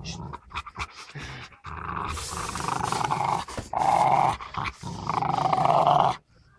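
Rottweiler growling: short broken growls at first, then three long, rough growls from about two seconds in.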